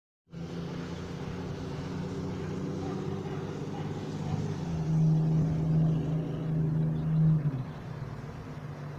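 A motor vehicle's engine running with a steady hum. It grows louder about halfway through and drops away shortly before the end.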